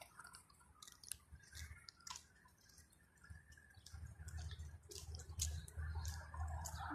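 Faint crackling and clicking from walking on dry ground, with a low rumble on the microphone building from about halfway through.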